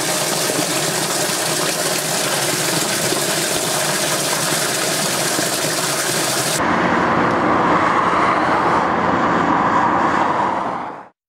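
Stream water pouring out of a pipe and splashing into a larger culvert pipe, a steady gushing. About six and a half seconds in it gives way abruptly to the steady noise of motorway traffic, which cuts off near the end.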